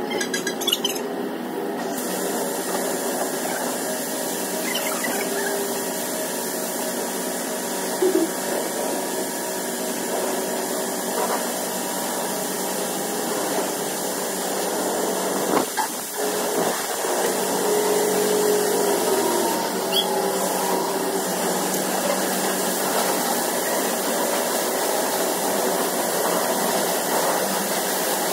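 Pressure washer running, its wand spraying water in a steady hiss over the hum of the pump, with a few brief squeals.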